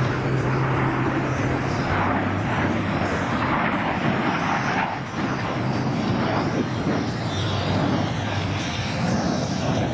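USAF Thunderbirds F-16 fighter jets flying in formation: a steady jet engine noise with a low hum underneath.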